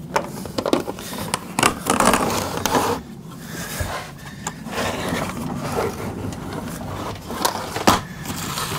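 Irregular scraping, rustling and knocking from hand work, over a steady low hum.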